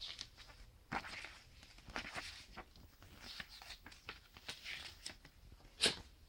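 A CD's packaging handled by hand: crinkly rustling and scattered light clicks of plastic and paper, with one sharp click near the end.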